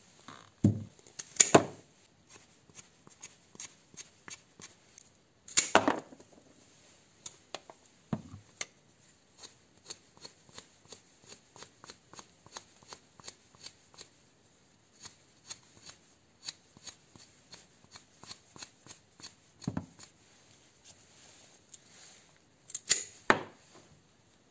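A blade scraping bark off the end of a grape cutting down to the green layer: many short dry scratching strokes, a few a second, with a few louder knocks near the start, about six seconds in and near the end.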